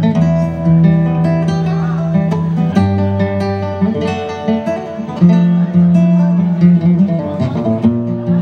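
Live acoustic guitar music, plucked and strummed, with some long-held low notes.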